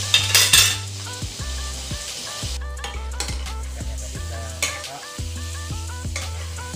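Salted fish sizzling as it fries in hot oil in a wok, with a metal spatula stirring and scraping against the pan. A quick run of scraping and clatter comes about half a second in, then scattered clicks from the utensils. Background music with a repeating melody plays underneath.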